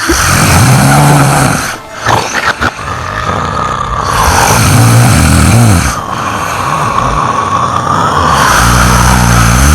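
A person snoring loudly, with three long snores about four seconds apart, each rising and then falling in pitch.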